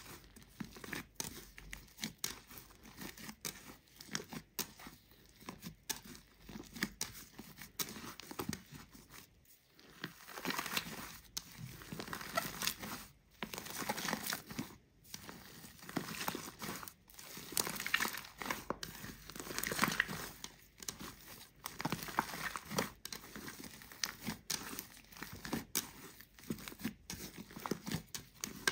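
Hands kneading and squeezing a large lump of slime mixed with shaving foam, making a dense, irregular sticky crackling and squishing. It grows louder and busier through the middle of the stretch.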